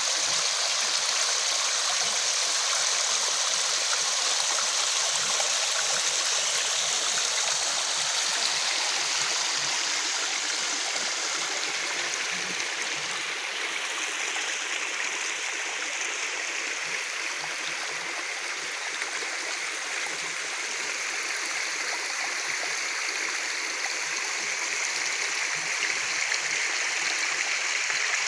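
Waterfall: water rushing and splashing in a steady hiss with little deep rumble, easing a little in the middle and building back up toward the end.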